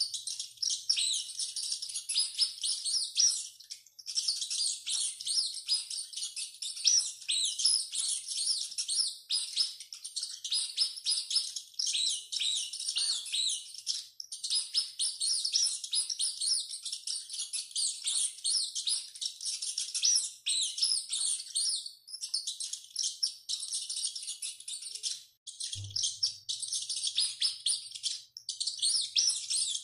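Rats squeaking: a dense, continuous run of rapid high-pitched squeaks and chirps, with a brief break and a low thump near the end.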